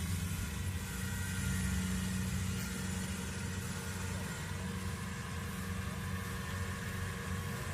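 Kubota DC70 Plus combine harvester's diesel engine running steadily with a low hum.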